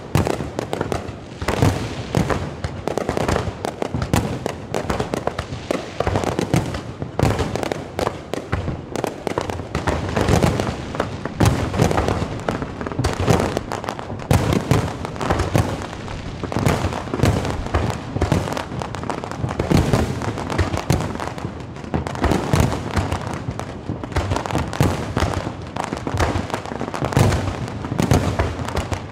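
Fireworks display: a continuous barrage of aerial shells bursting overhead, many bangs in quick succession with no pause.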